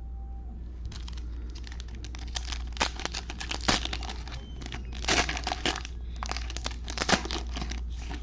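Foil wrapper of a 2020 Panini Mosaic football cello pack being torn open and crumpled by gloved hands: dense crinkling and crackling from about a second in, with a few sharper, louder crackles.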